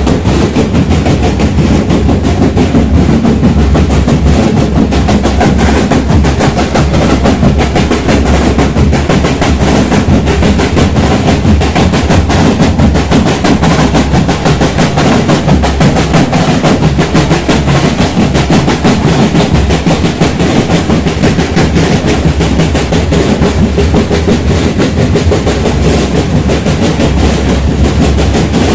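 Marching drum band playing on the move: many snare and bass drums beaten together in a dense, unbroken rhythm, loud and close.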